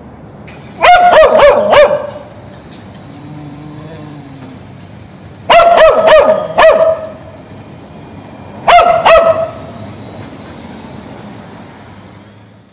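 Dog barking in three bursts of several quick barks each: one about a second in, one in the middle and a shorter one near the end, over a low steady background hum.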